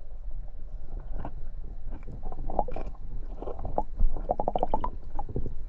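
Water sloshing and gurgling around the camera, with a low rumble and scattered knocks and clicks, including a quick rattle of clicks and a louder knock past the middle.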